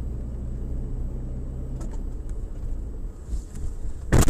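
Steady low rumble of a car's engine and tyres heard from inside the cabin, then a loud crash about four seconds in as it collides with another car crossing in front.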